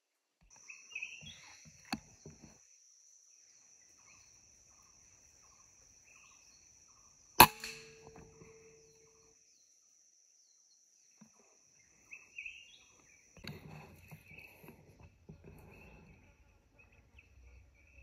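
A PCP air rifle fires a single shot about seven seconds in, a sharp crack that is the loudest sound, followed by a brief ring. Birds chirp and a steady high-pitched buzz runs through the first two-thirds; rustling handling noise follows near the end.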